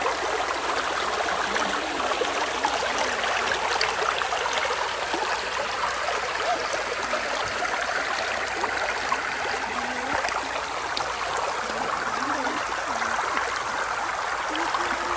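Shallow, stony river flowing: a steady rush of water over small rocks.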